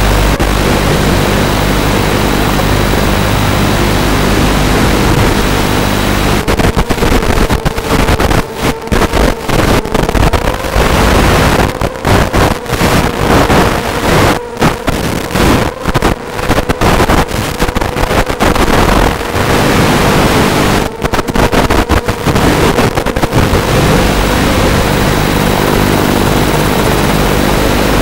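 Steady electrical buzz and hiss on the audio of an analog FPV video link, as recorded by the goggles' DVR. From about 7 to 24 seconds in it breaks up into rapid choppy crackles and dropouts, the sign of a weakening radio signal.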